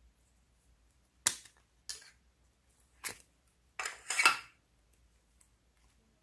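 Thin clear plastic mold clicking and crackling as a clay heart is worked out of it: three sharp snaps, then a longer, louder crinkly crackle about four seconds in.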